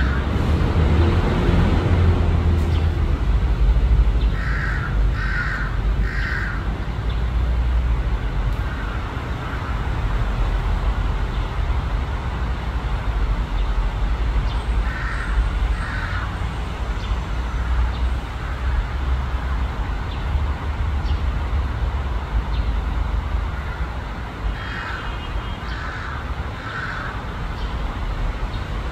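Crow cawing in short series: three caws about five seconds in, two around the middle, and three more near the end, over a steady low rumble.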